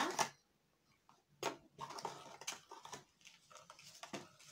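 Packaging being handled as items are taken out of a small cardboard box: a series of short, scattered rustles and clicks after a quiet first second.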